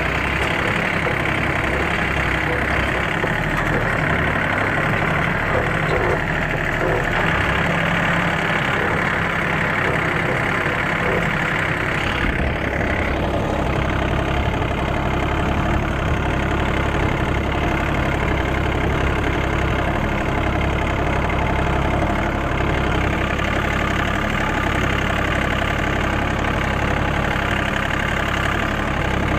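John Deere 3036EN compact tractor's diesel engine running steadily while pulling a cultivator through the soil, with a shift in the engine's low note about twelve seconds in.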